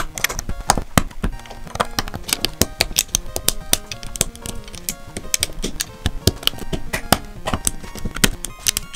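Plastic LEGO bricks clicking and snapping together under the fingers as a small spaceship model is built, a rapid run of sharp clicks, over background music.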